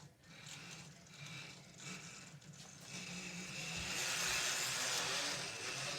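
N scale model train running on its track: a steady electric-motor hum with wheel-on-rail hiss, growing louder over the last few seconds.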